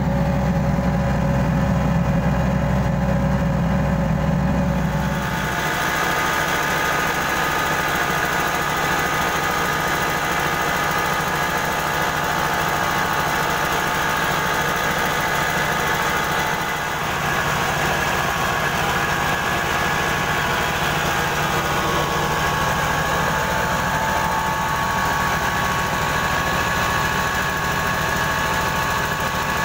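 Engine-driven mobile rice mill running steadily, its engine and spinning huller and polishing wheel making a constant machine drone with a steady whine. The sound changes about five seconds in, losing its deep hum, and dips briefly about halfway through.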